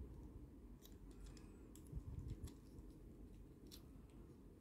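Faint, irregular clicks from the plastic joints of a small Mechanic Studio MS-24 Recyclers transforming robot figure as its limbs are turned and folded by hand. A few sharper clicks come about a second in and near the end, over low handling rustle.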